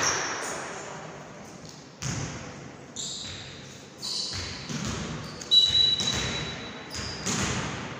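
A volleyball being struck and hitting the court in a rally, giving a series of sharp smacks about a second apart, each echoing in a large hardwood-floored gym hall.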